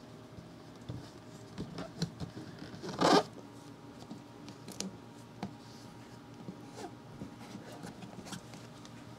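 Vinyl stickers being peeled from their backing and pressed and smoothed onto a plastic folding storage box. About three seconds in comes a short tearing peel, the loudest sound, among light fingertip taps and scratches on the plastic.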